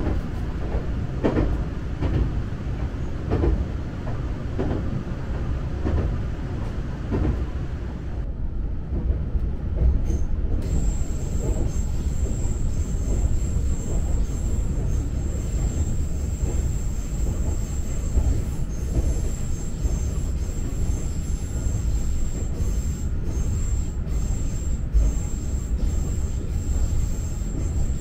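Nagano Electric Railway's Yukemuri limited express train running, a steady low rumble with regular rail clicks about once a second at first. A thin, steady high whine joins from about ten seconds in.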